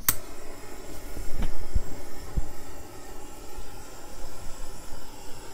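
Handheld torch flame burning steadily with a rushing hiss and a low, uneven rumble, after a sharp click at the start.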